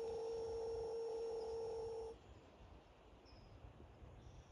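A steady electronic tone, like a phone's dial tone, holding one pitch and cutting off sharply about two seconds in, followed by a quiet background with faint high chirps.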